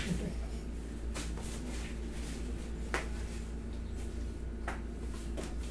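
Quiet room tone with a steady low hum, and a few faint clicks and rustles as a leg and a cloth are handled on a massage table.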